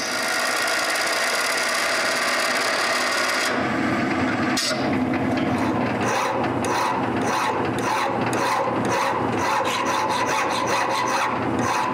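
Lathe spinning a brass rod while a carbide-tipped tool cuts a point on it, a steady cutting sound. About three and a half seconds in this switches to a hand file stroking back and forth across the turning brass, a rasping sound in repeated strokes.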